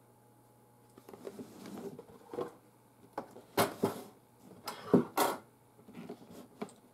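Cardboard punchboard sheets being handled and laid into a cardboard game box: a string of irregular rustles and flat knocks, the loudest a few seconds in.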